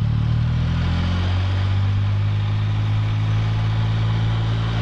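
Can-Am Spyder F3's three-cylinder engine running at a steady cruise, under a steady rush of wind and road noise.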